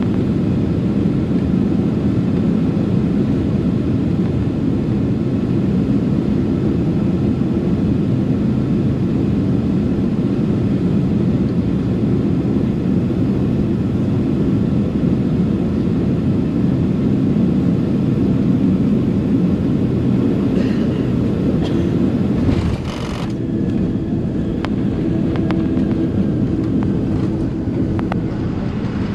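Steady rush of airflow and jet engine noise heard from inside the cabin of a Boeing 767-300ER on its landing approach. About three-quarters of the way through, a brief burst of noise comes; after it the sound drops a little and a steady hum carries on.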